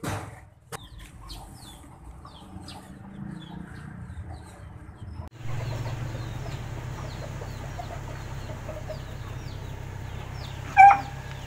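Chickens clucking and birds chirping over a steady low hum, with one loud, short squawk near the end.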